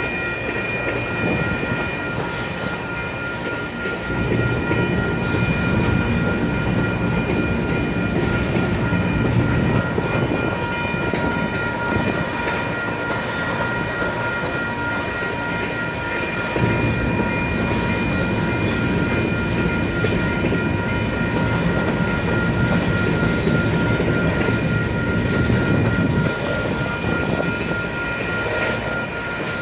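Cars of a long freight grain train rolling slowly past: a steady rumble and clatter of steel wheels on rail that swells twice, with steady high-pitched tones held over it.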